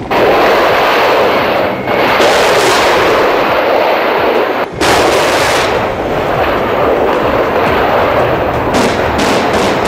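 Mi-24 Hind helicopters firing salvos of unguided rockets from their pods: a loud, continuous rushing roar of launches, broken by two short gaps. Near the end it turns into a rapid run of separate cracks, about four or five a second.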